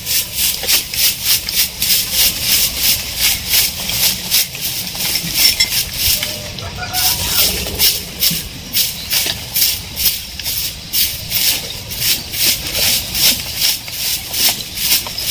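Quick rhythmic sweeping strokes scraping dry litter and debris across bare ground, about three strokes a second, with a brief pause a little before halfway.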